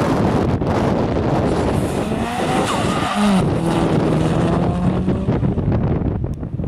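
Subaru Impreza STI Spec C's turbocharged flat-four engine working hard as the car accelerates past on a sprint track. There is a brief break in the engine note about three seconds in, a gear change, before it pulls on at a steady pitch. Wind buffets the microphone throughout.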